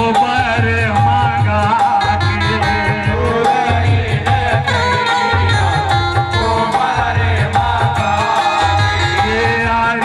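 Live jas geet, a Chhattisgarhi devotional folk song: men singing over a steady hand-drum beat with keyboard accompaniment, played loud through the stage PA.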